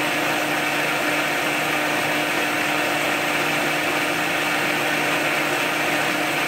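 Vitamix blender motor running steadily with an even hum as it purées hot cooked cauliflower and broth into a smooth sauce.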